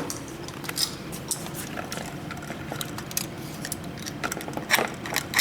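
A knife blade scraping paint off a bare copper ground wire: short, irregular scratchy scrapes, coming quicker and louder near the end, cleaning the wire for a good connection.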